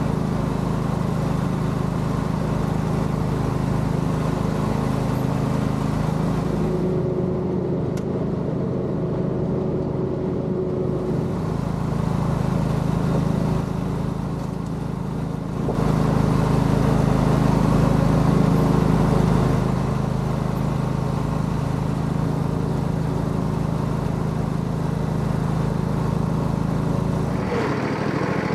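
John Deere L118 riding mower's engine running steadily as the mower is driven. The tone and level shift abruptly a few times, about 7, 16 and 20 seconds in.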